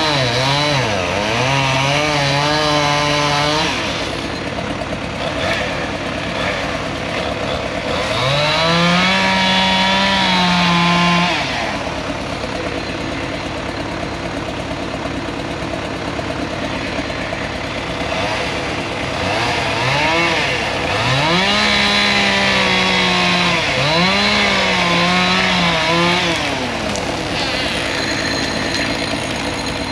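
Chainsaw revving up and holding high in three cuts: at the start, about nine seconds in, and from about twenty to twenty-six seconds. Between cuts it drops back to a lower steady run.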